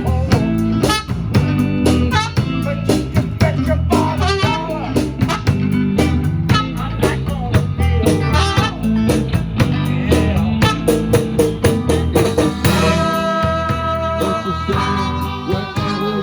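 Live band playing a song: drum kit keeping a steady beat under bass and electric guitar. Long held notes come in near the end.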